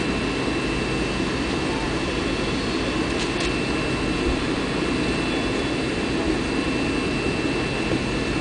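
Cabin noise of an MD-82 airliner taxiing onto the runway, its rear-mounted Pratt & Whitney JT8D-200-series turbofans running at low power: a steady rumble with a thin, constant high whine. Two faint clicks come a little past three seconds in.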